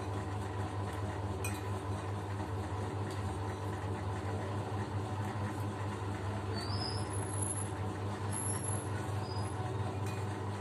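A steady low hum with several fixed pitches. A metal spoon clinks once against a ceramic bowl about a second and a half in.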